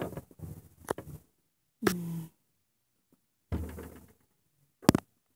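Knocks and light clatter from toy dollhouse pieces and figures being handled, with a brief sound that drops in pitch about two seconds in and a sharp knock near the end.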